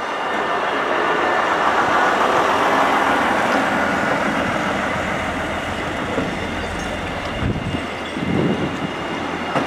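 DB Class 628 diesel multiple units rolling past, their diesel engines running and wheels running on the rails in a steady noise.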